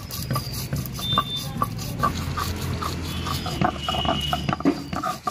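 Coriander and cumin seeds being ground on a flat stone slab (shil) with a stone roller (nora): stone rasping on stone as the roller is worked back and forth, with many small sharp cracks as the seeds are crushed.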